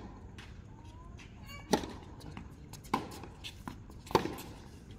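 Sharp hits at a steady pace, three in all, a little over a second apart, with a short rising squeak just before the first.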